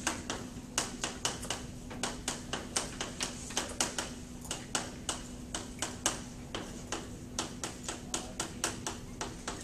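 Chalk tapping and scraping on a blackboard as words are written out: a rapid, irregular run of short sharp clicks, about three or four a second, over a faint steady hum.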